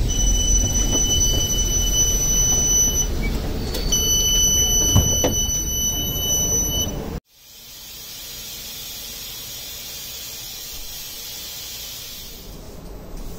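CAF Urbos 3 tram door warning tone: a high electronic beep sounding twice, each about three seconds long, over a low rumble. About seven seconds in, it cuts off abruptly and gives way to the quieter steady hum inside the tram.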